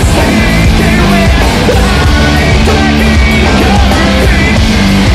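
Rock band playing loud live, with electric guitar, bass and drums under the lead singer's voice.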